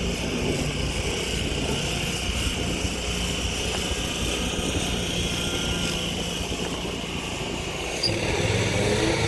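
Steady drone of a grass-cutting machine's small engine running. A deeper, stronger engine tone comes in near the end.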